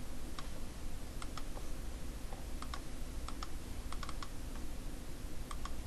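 Scattered clicks of a computer mouse and keyboard, often in quick pairs, over a steady low hum.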